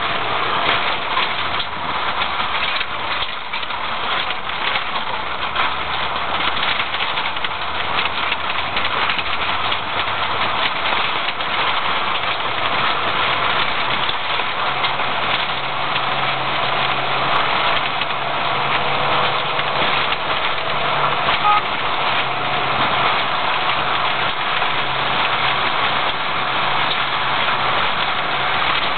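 Car engine running with road noise from the tyres on a rough dirt track, heard from inside the cabin while driving: a steady low engine note under an even noise.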